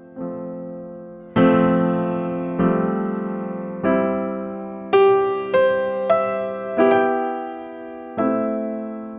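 Background music: slow solo piano, chords struck about once a second and left to ring and fade.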